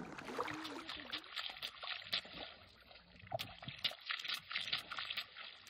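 River water splashing and trickling in a dense run of small splashes, with a short lull about three seconds in.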